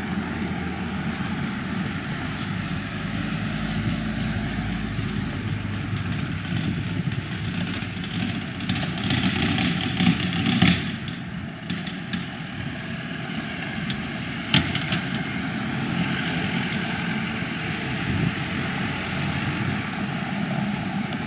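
Street traffic noise: a steady rumble of passing cars, with a louder vehicle going by about halfway through and a single sharp knock a few seconds later.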